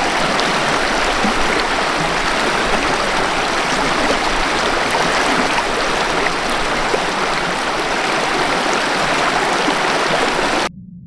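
A river rushing over rocks in a steady, even torrent. It cuts off suddenly near the end, leaving only a faint low hum.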